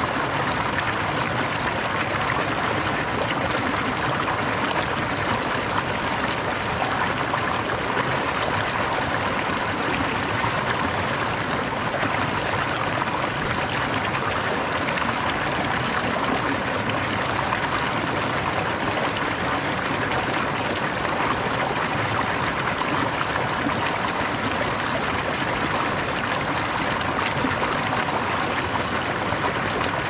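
Merced River running: a steady, even rush of flowing water.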